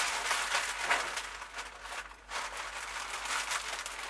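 A sheet of baking paper crinkling and rustling as it is folded and wrapped around a meat roast, in irregular bursts with a short lull about two seconds in.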